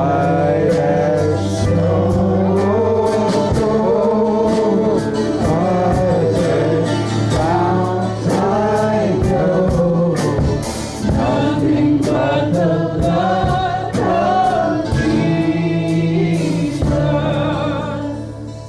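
Gospel worship song: a group of voices singing over a band with a steady bass line and a regular drum beat, fading down near the end.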